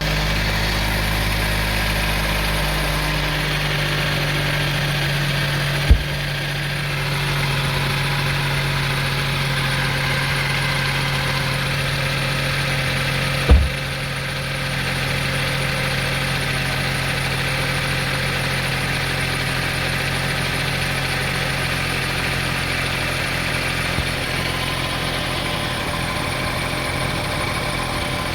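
Honda CR-V 2.4-litre four-cylinder engine running at a steady idle just after being started, heavier and lower for the first few seconds before settling. Two sharp knocks stand out, about six seconds in and again past the middle.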